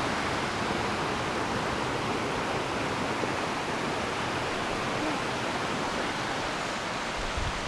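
Cascading water rushing steadily over rocks.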